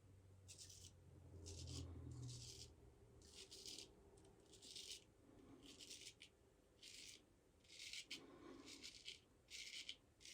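Straight razor scraping through stubble in short, separate strokes, about one a second, each a brief dry rasp.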